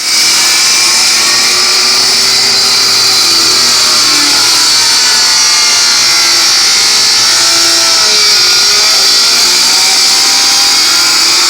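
Electric saw running continuously as it cuts through a wooden board, its motor pitch wavering slightly under the load of the cut.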